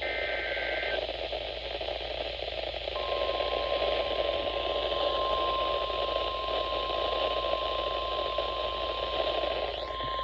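NOAA Weather Radio receiver over steady static hiss: the third of three SAME data header bursts, a harsh two-tone digital warble, ends about a second in. About three seconds in, the steady single-pitch 1050 Hz weather radio warning alarm tone starts and holds, signalling that a warning is about to be broadcast.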